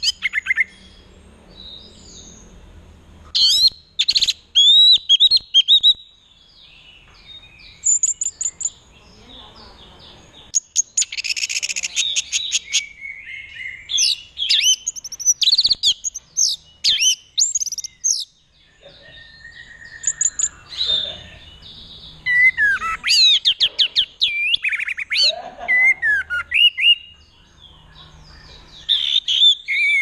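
Orange-headed thrush (anis merah) singing in bursts of quick, varied whistled notes and fast rattling trills, with pauses of a second or two between phrases. This is the song believed to go with the bird's 'teler' courtship display in breeding condition.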